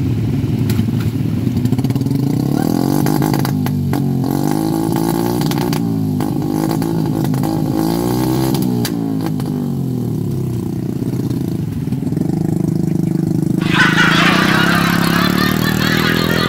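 Small motorcycle engines labouring under heavy loads of rice sacks in deep mud, their revs rising and falling over and over. Near the end a steady hiss comes in suddenly over the engine noise.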